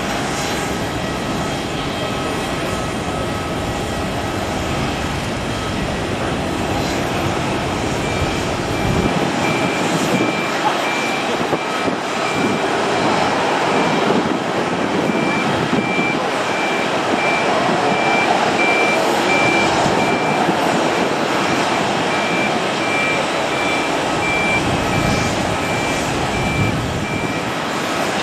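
Steady jet and apron noise from aircraft taxiing, with a ground vehicle's reversing alarm beeping in a repeated high pitch from about a third of the way in until just before the end.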